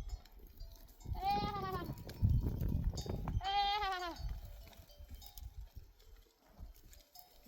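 Two long bleats from sheep in a grazing flock, about two seconds apart, each rising and then falling a little in pitch, over a faint clinking of flock bells.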